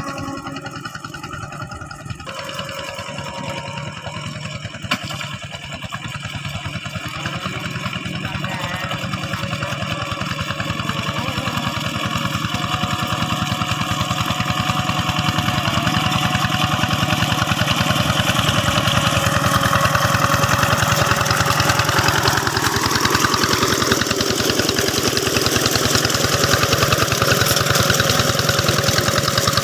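Single-cylinder diesel engine of a two-wheel hand tractor running steadily with rapid, even firing, growing gradually louder over the first two-thirds and then holding level.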